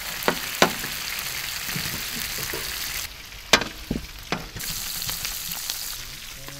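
Chicken wings deep-frying in a large wok of hot oil, a steady sizzle. Several sharp clinks of a perforated metal skimmer come as the fried wings are scooped out, two near the start and three a little past the middle.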